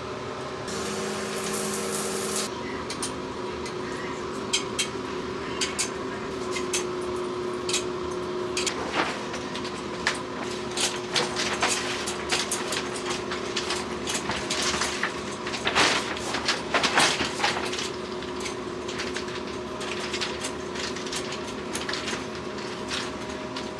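Irregular light clicks and clinks of hands fitting a shower head and hooking a shower curtain onto metal hooks along a curtain rod, over a steady hum. The clicks come thickest and loudest about two-thirds of the way through.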